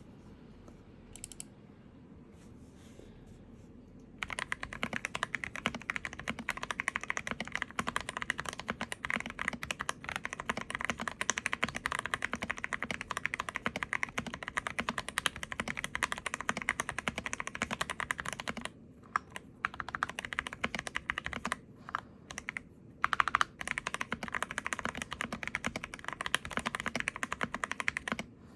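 Typing on an Akko PC75B Plus mechanical keyboard with lubed Akko CS Jelly Purple switches, relubed stock stabilizers and a tape mod. A fast, continuous run of keystrokes starts about four seconds in and stops briefly a few times in the second half.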